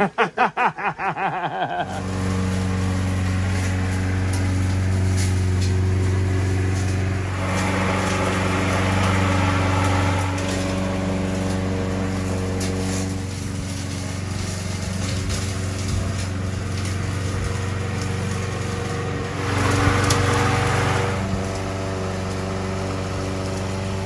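Walk-behind lawn mower running steadily, starting about two seconds in and swelling louder twice, around eight seconds and again around twenty seconds in.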